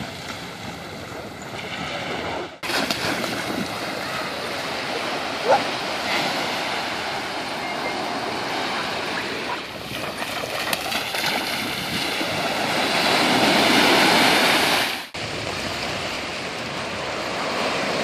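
Small ocean waves breaking and washing up a sandy shore, with splashing as a dog runs through the shallow water. The surf noise swells louder about two-thirds of the way through and is broken twice by abrupt cuts.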